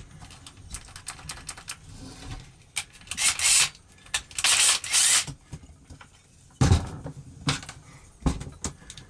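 A drill briefly enlarging a rivet hole in a small replacement latch clip: two short bursts of drilling about three and four-and-a-half seconds in, among small clicks of the part and tool being handled, with three sharp knocks near the end.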